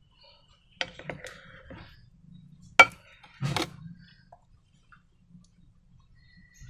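A few sharp clicks and clinks of hard objects being handled during slime-making: a small cluster about a second in, a single loud click near the three-second mark, then a short rustle right after it.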